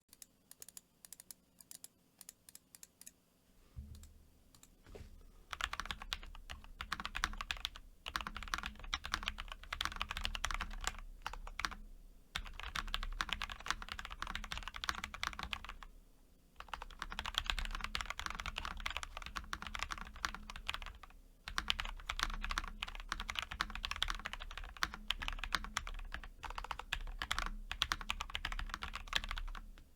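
Typing on a TES68 mechanical keyboard with lubed Gateron Box Ink V2 Pink linear switches and lubed stock stabilizers. A few scattered keystrokes at first, then fast continuous typing from about five seconds in, broken by a few short pauses.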